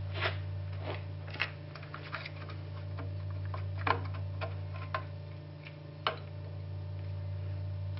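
Scattered small metallic clicks and taps as a Beetle ragtop latch handle, its pin and coil spring are worked loose from the metal roof bow by hand, over a steady low hum.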